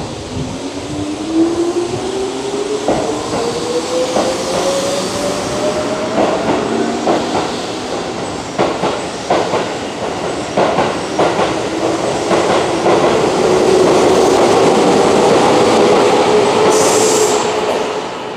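Keihan 6000-series electric train pulling out of a station: a motor whine rises steadily in pitch as it accelerates, while the wheels clack over rail joints faster and faster. Then comes the loud steady rush of the last cars passing, dying away near the end.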